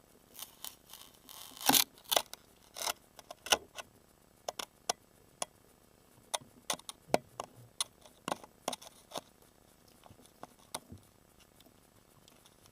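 Hands fiddling with small parts of the refrigerator thermostat wiring: an irregular run of clicks, taps and light rattles, loudest about two seconds in and thinning out after about nine seconds.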